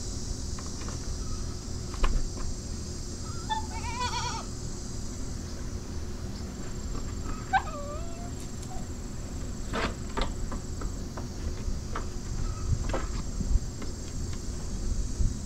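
Boer goat bleating: a quavering call about four seconds in and a shorter one near eight seconds, over a steady high hum of insects.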